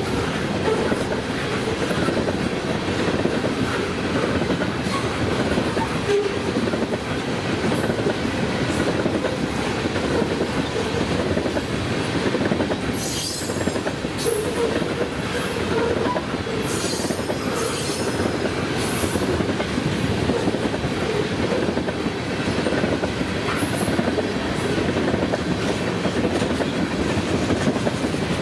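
Freight train cars rolling past at speed: a steady rumble and clatter of steel wheels on rail, with brief high-pitched wheel squeals several times in the second half.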